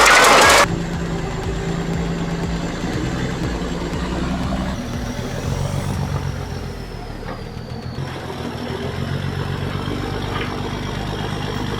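Loud music cuts off in the first second. A heavy vehicle's engine then runs steadily, its low pitch stepping up and down a few times.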